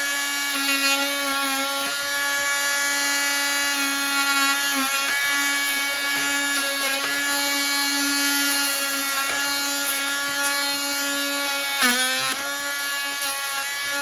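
A power tool's motor runs steadily with a high whine while cutting down corn stalks. Its pitch dips briefly twice as it bogs under load, about five seconds in and again near the end with a sharp crack.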